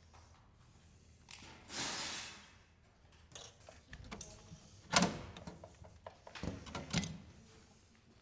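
Modular parts being slid out of a metal server chassis and set down: a short scraping slide about two seconds in, then a sharp knock about five seconds in, followed by a few lighter knocks and clicks.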